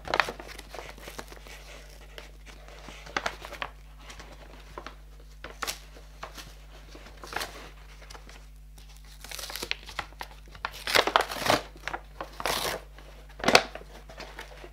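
Brown paper packaging crinkling and tearing as a parcel is opened by hand, in irregular bursts with quieter gaps between them. The loudest rustles come in the last few seconds.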